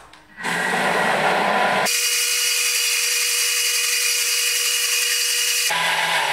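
A TM5 Thermomix blending strawberries with sugar and lemon juice at high speed: a loud, steady motor whir with chopping noise that starts about half a second in. About two seconds in it turns thinner and hissier, and it returns to its fuller sound near the end.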